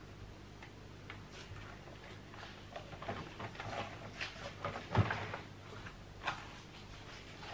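Hands kneading sticky bread dough on a silicone mat: irregular soft squelches as the dough is pushed, folded and peeled off the mat, the loudest about five seconds in. The dough is still sticky, early in the kneading.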